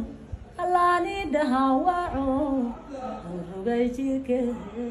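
A woman singing a short melody unaccompanied, holding notes that step up and down, in two phrases.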